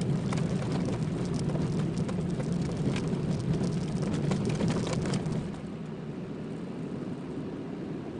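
Car driving, with steady road and engine rumble heard from inside the cabin. Over it runs a dense crackle of small hits from the tyres on a rough road surface, which dies away about five seconds in and leaves a quieter, smoother rumble.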